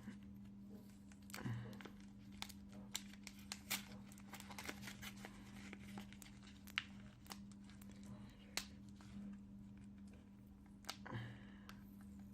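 Mail packaging being torn and crumpled open by hand: scattered crinkles, clicks and short rips, over a steady low hum.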